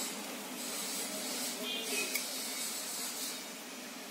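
A few light metallic clinks as small parts of a demolition hammer's carbon-brush holder are handled, over a steady hiss.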